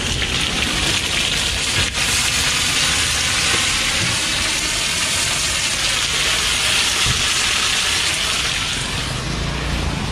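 Pieces of blood sausage sizzling steadily as they are stir-fried in a large wok.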